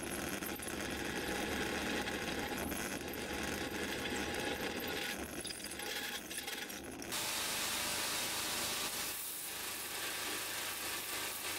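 Drill press running with a twist bit cutting through a steel blank. About seven seconds in it gives way to a belt grinder grinding steel, a brighter, steady hiss.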